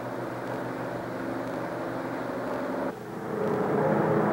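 Lockheed Super Constellation's four radial piston engines running at takeoff power during the takeoff roll, a steady hum. About three seconds in the sound briefly drops, then swells louder again.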